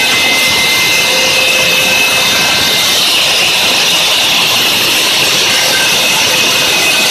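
Hobby CNC router's spindle running with a steady high-pitched whine as its small end mill cuts a square opening in a panel, over a continuous cutting hiss. The pitch of the whine shifts about three seconds in.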